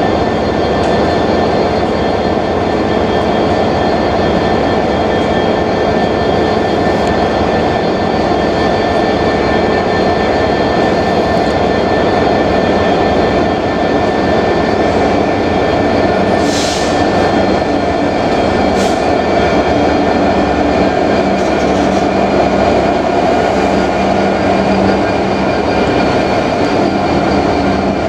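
Freightliner Class 66 diesel locomotive's two-stroke V12 engine running steadily as it hauls a container freight train slowly past, with the wagons' wheels running on the rails. There is a brief hiss a little over halfway through.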